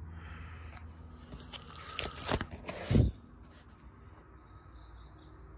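A page of a photo album being turned by hand: paper and plastic rustling and crinkling with a few sharp clicks, ending in a dull thump about three seconds in as the page settles.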